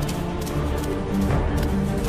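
Background music score: low sustained tones with sharp percussive hits.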